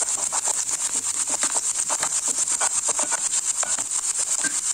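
A spatula scraping back and forth in a nonstick kadai in quick repeated strokes, stirring cashews and raisins that are frying in ghee, over a steady sizzling hiss.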